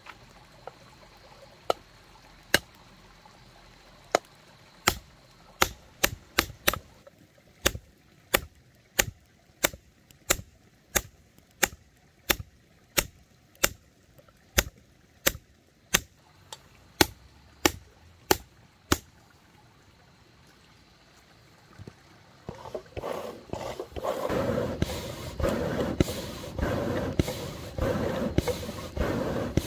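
Hammer blows on hot iron being forged, struck in a steady rhythm of about one and a half blows a second. After a short pause, a loud rushing hiss starts near the end.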